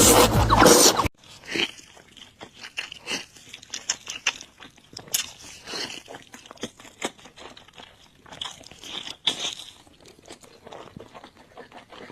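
Close-up crunching and chewing of crispy fried chicken: irregular crackly bites and mouth sounds. A louder, fuller sound cuts off suddenly about a second in.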